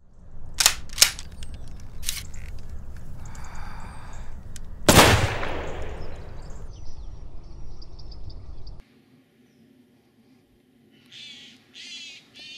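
Sharp cracks over a low rumble: a few quick reports in the first two seconds, then one louder gunshot about five seconds in that echoes away. The rumble cuts off abruptly near nine seconds. After that come three short, harsh calls close together near the end.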